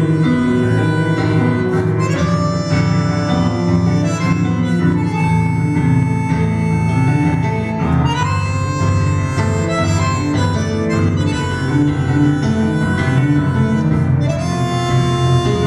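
Instrumental music with a steady pulsing bass and long held melody notes.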